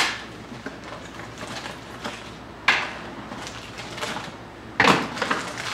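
Cardboard trading-card hobby box being handled and opened after its wrapping is cut: rustling and scraping of cardboard and wrapper, with two louder rustles about two and a half and five seconds in.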